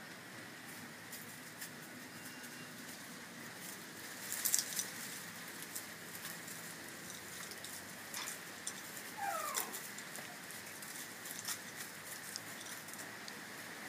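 Boxer puppies scrabbling over plastic netting and dry leaves, scattered rustles and clicks, most about four and a half seconds in and again between eight and twelve seconds. About nine seconds in, a puppy gives one short whimper that falls in pitch.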